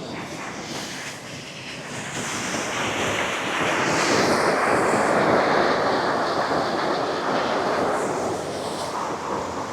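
Waterfall: a steady rush of falling water, growing louder about two seconds in and easing a little near the end.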